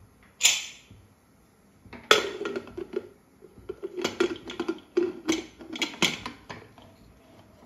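Aluminium pressure cooker's lid being put on and closed: a short scrape near the start, then a run of metal clanks and knocks as the lid is seated and the handles locked together, the loudest clank about two seconds in.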